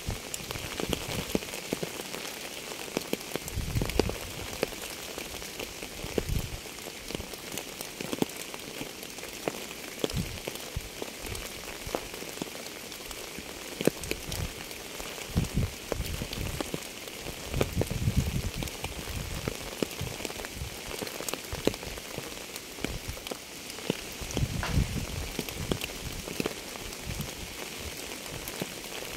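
Steady rain falling on a surface, with a constant hiss and many individual drops ticking. Every few seconds there are duller, louder low thuds.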